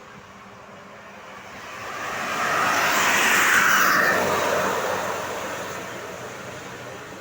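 A road vehicle passing close by. Its engine and tyre noise swells over about two seconds, peaks near the middle, then fades away, with no horn sounded.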